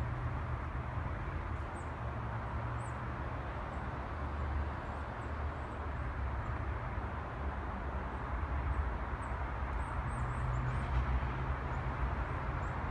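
Steady low hum of city traffic, with short, high chirps of small birds scattered over it, a little cluster of them about ten seconds in.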